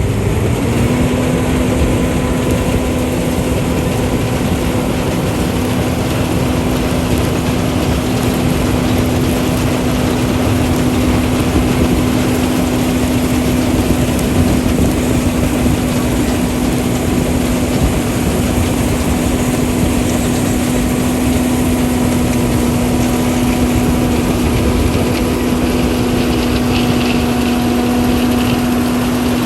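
Combine harvester running in the field while harvesting soybeans: a loud, steady mechanical din, with a constant droning tone that comes in about a second in and holds.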